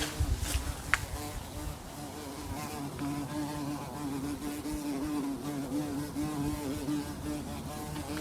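Bee buzzing in flight, a steady hum that wavers slightly in pitch, with a couple of sharp clicks in the first second.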